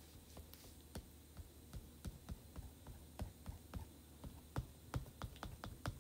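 Faint, irregular clicks and taps of a plastic chalk-paste applicator working over an adhesive silkscreen transfer on a board, coming faster in the last couple of seconds.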